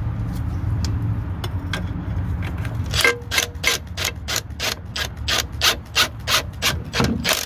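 Ratcheting wrench clicking about four times a second as a shock absorber mounting bolt is tightened by hand. The clicks start about three seconds in, after a low rumble.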